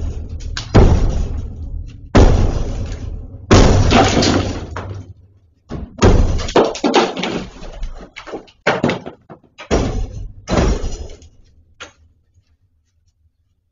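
Heavy blows struck against a masonry wall from outside a small room, about a dozen at irregular intervals, each ringing out in the room, as the wall is being broken through. The blows come closer together in the middle and grow weaker toward the end.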